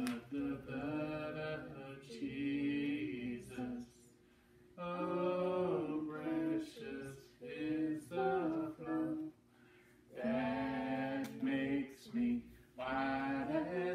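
Unaccompanied hymn singing: a boy's voice with a man singing along, in sung phrases with short pauses between.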